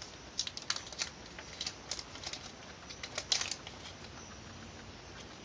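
A small plastic bag of thermoplastic pellets being handled, making light crinkles and clicks in a quick, irregular run that stops about three and a half seconds in.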